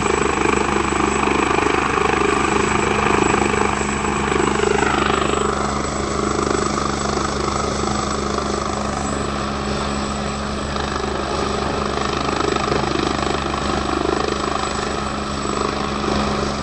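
Helicopter flying nearby, a steady rotor and engine sound whose whine drops in pitch about five seconds in as it passes.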